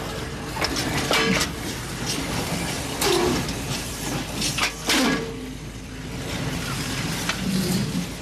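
Metal clanking from freight wagons and their couplings during shunting: several sharp knocks over a steady low rumble.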